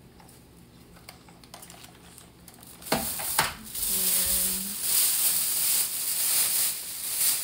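Plastic bag rustling and crinkling, loud and continuous from about halfway through, after two sharp knocks. A brief low hum-like tone sounds just after the knocks.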